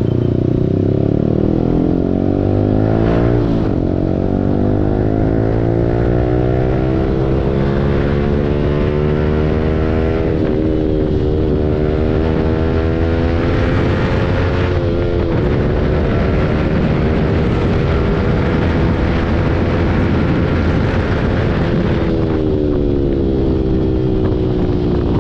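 Yamaha R15 V4's single-cylinder engine running through an aftermarket Akrapovic full-system exhaust under way. The note falls at first, then climbs steadily with short dips at gear changes about ten and fifteen seconds in, holds, and falls again near the end as the bike slows, over a steady rush of wind.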